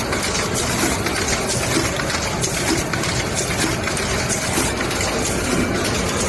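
Automatic rotary tube filling and sealing machine running at speed: a steady, dense mechanical noise with many small, rapid clicks as the platen indexes the tubes through filling and sealing.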